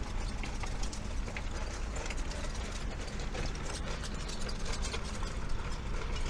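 Outdoor ambience: a steady low rumble with scattered light clicks and taps.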